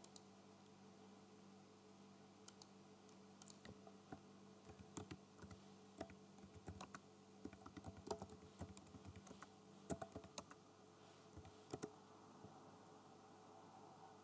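Faint typing on a computer keyboard: irregular runs of keystrokes from about two seconds in until near the end, after a single click near the start.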